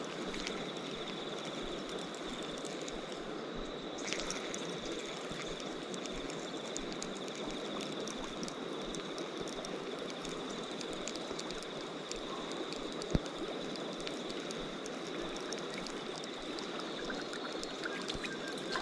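River water running steadily, with a steady high-pitched whine over it and one sharp click about two-thirds of the way through.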